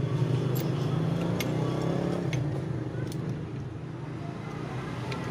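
A motor vehicle engine running steadily, easing off slightly after the middle, with a few sharp metallic clicks.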